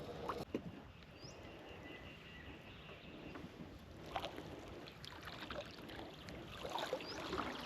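Soft water dripping and splashing with a few light knocks, as a crab pot is hauled up out of the river beside a small boat.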